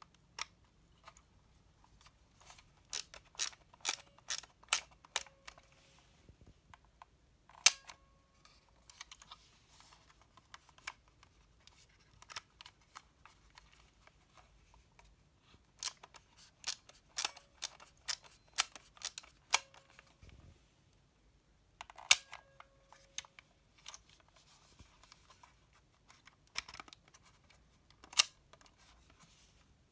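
Olympus Shoot&Go R 35mm compact film camera being worked by hand: runs of quick ratcheting clicks as the film advance wheel is wound, then a sharp shutter click followed by a faint rising whine of the flash charging, twice over, with one more click near the end.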